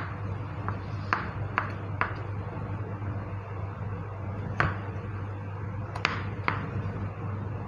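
Kitchen knife cutting watermelon into cubes on a plastic cutting board, the blade knocking the board in a series of sharp, irregular taps, with a pause of about two seconds in the middle.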